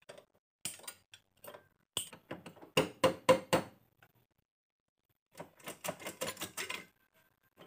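Metal clicks and taps from work on the clutch cover of a Honda Revo Absolute 110 engine as it is being taken off. A few single clicks come first, then two bursts of rapid taps: one about two seconds in and one in the last third.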